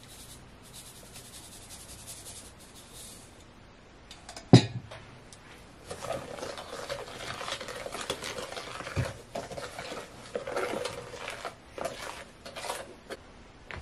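Sand pouring from a cup into a plastic tub of wet glue mixture, a faint hiss, then a sharp knock about four and a half seconds in. From about six seconds, a plastic spoon stirs and scrapes the thick, gritty sand slime against the tub's sides and bottom.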